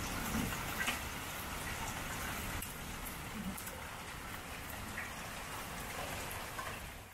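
Hail and rain pelting down in a hailstorm: a dense, steady patter with scattered sharper ticks of single stones striking. It fades out at the very end.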